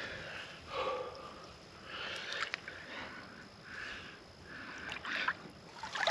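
A man's heavy breathing under strain, about one breath every second and a half, as he heaves a heavy anchor up a muddy bank, with a few faint sharp knocks.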